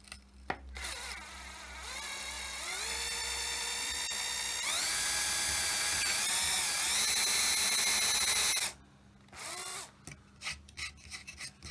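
Electric drill spinning up and boring an angled hole into a wooden board: the motor's whine rises in steps, runs high with a brief dip midway, then cuts off suddenly, followed by a few light knocks.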